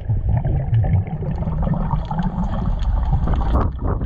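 Muffled underwater rumble and bubbling of water moving around the microphone during a snorkeling dive, with scattered faint clicks and crackles.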